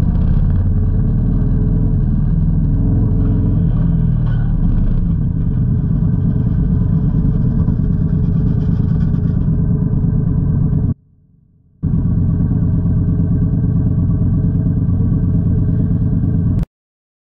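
Motorcycle engine running with a steady low rumble as the bike rolls in traffic. The sound drops out for under a second about eleven seconds in, and cuts off shortly before the end.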